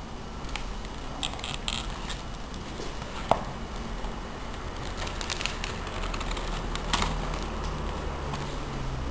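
Paper crackling and rustling as a Robert Sabuda pop-up book is handled and its folded card pieces open out, with short crackly rustles and a couple of sharp snaps, one about a third of the way in and another near three quarters.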